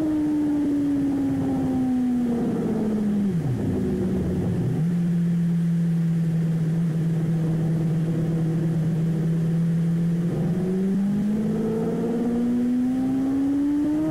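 Motorcycle engine at speed on a race track. Its pitch falls and dips sharply once about three to four seconds in, holds steady for about five seconds, then climbs again as the revs build.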